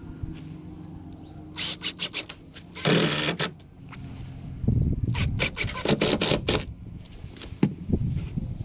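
Cordless drill driving screws through washers into a wooden railing post, in short bursts: one run about a second and a half in, a second run from about four and a half to six and a half seconds in.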